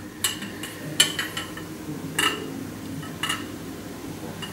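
Glass double-egg water vortexer clinking and knocking in its wooden stand as it is handled: about five short, sharp clinks with a brief ring.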